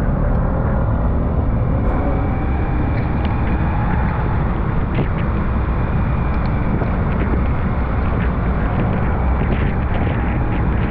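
Car driving along: a steady low rumble of road and engine noise, with faint scattered ticks.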